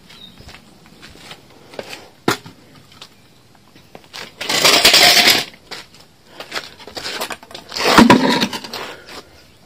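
A wooden footstool being set down and scraped across stone patio slabs: two rough scrapes, each about a second long, after a single sharp knock.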